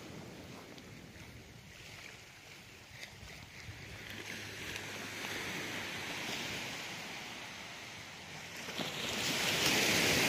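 Small waves washing onto a sandy beach: a soft hiss that rises and falls and swells loudest near the end.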